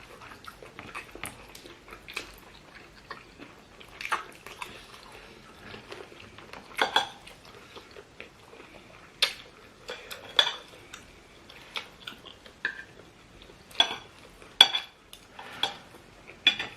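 Cutlery clinking and scraping against plates during a meal: irregular sharp taps, with a few louder strikes through the middle and toward the end.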